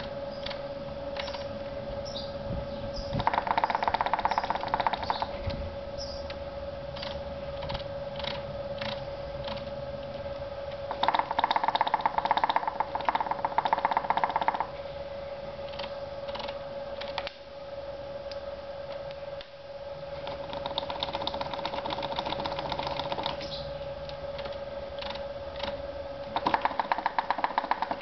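RockShox Pike suspension fork being pumped and rebounding over and over. Each rebound ends in a hard knock as the fork tops out, with four spells of fast, rattling knocks and single knocks between them. The owner takes this knock for a fault: it sounds like the fork hits its top-out stop far too hard, worst when the travel is shortened.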